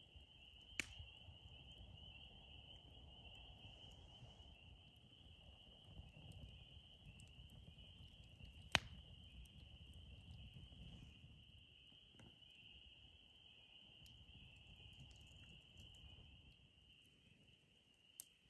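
Faint outdoor night ambience: a steady, high-pitched chorus trilling without a break, with three sharp clicks, the loudest about nine seconds in.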